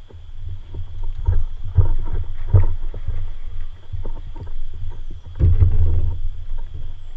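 A hooked bowfin thrashing and splashing at the surface beside a kayak, with heavy low rumbling and several hard thumps as the fish fights. The loudest knocks come a little past one, two and two and a half seconds in, and again over about a second near the end.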